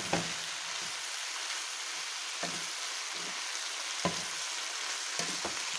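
Green beans, radish and meatballs sizzling in a hot pan with a steady hiss, while a spatula stirs them, knocking against the pan several times.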